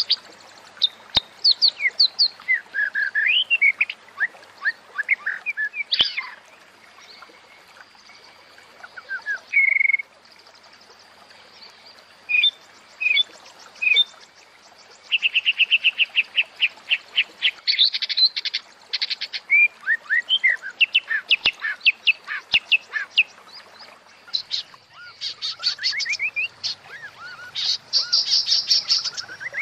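Female white-rumped shama (murai batu) calling: a varied run of short whistled notes, chirps and fast rattling trills in separate phrases, with short pauses between them. This female call is used to bring male shamas into breeding condition (birahi).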